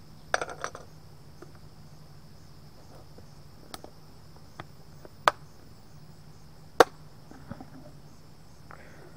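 Screwdriver prying at the plastic rim of a paint can lid: a short cluster of knocks just after the start, then a few separate sharp clicks and snaps, the loudest about five and seven seconds in. Insects chirp steadily in the background.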